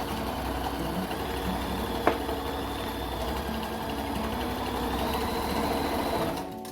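New Home 648 heavy-duty electric sewing machine, freshly serviced, running steadily with a sharp click about two seconds in; its motor whine rises a little after about five seconds, then it stops near the end as guitar music starts.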